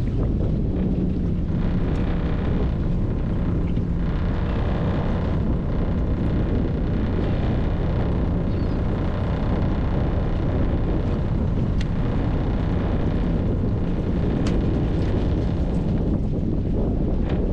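Fishing boat's engine running steadily, a low even hum, with wind buffeting the microphone.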